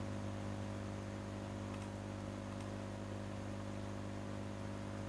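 Steady low electrical hum with hiss from the recording setup, and two faint mouse clicks about two seconds in, the second under a second after the first.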